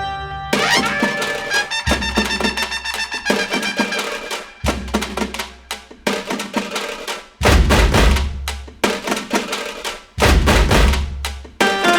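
Background music with a steady drum beat, heavy bass hits and melodic instrument lines.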